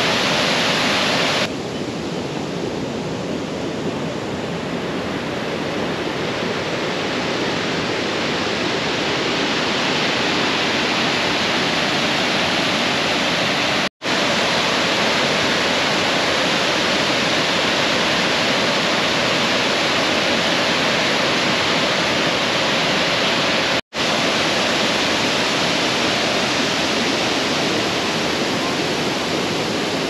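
Steady rushing of water pouring over the wide, low rock ledge of Shoal Creek's Grand Falls. About a second and a half in it drops and grows gradually louder over the following seconds, and it cuts out for a split second twice.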